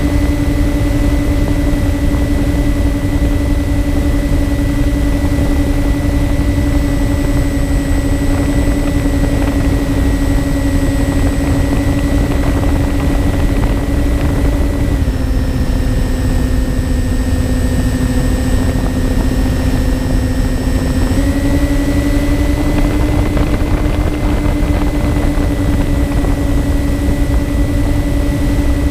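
Twin electric motors and propellers of a MyTwinDream FPV model plane in flight, heard from the onboard camera: a steady hum over rumbling wind noise. The pitch drops slightly about halfway through as the motors slow a little, and rises back about six seconds later.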